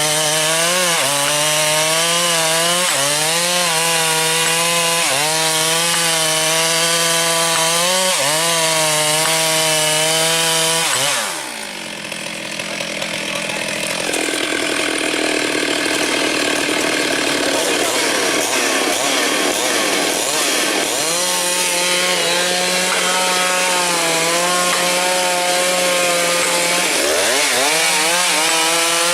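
Chainsaw running at high revs while cutting wood, its pitch dipping briefly about every two seconds as the chain bites in. About eleven seconds in, the engine note falls away and a quieter, different sound carries on for about ten seconds. Then the saw is heard running and cutting again.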